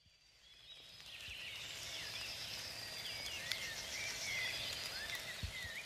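Small birds chirping in short, quick, rising and falling notes over a low background hiss, with a faint steady high tone under them. It fades in over the first second, and a couple of low thumps come near the end.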